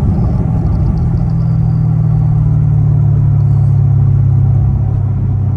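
Chevrolet Camaro SS 6.2-litre V8 with an axle-back muffler delete, exhaust droning steadily at an even cruising speed.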